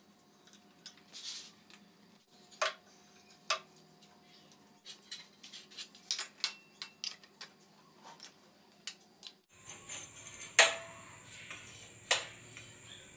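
Knives and metal kitchen utensils clicking and knocking against the nails and wood of a wall rack as they are hung up. The clicks are scattered, a few ring briefly, and the two loudest come near the end over a steady hiss.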